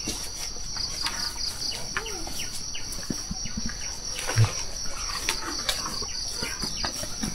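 Insects chirping in a steady high-pitched drone, with scattered faint clicks and knocks and one short low thump about four and a half seconds in.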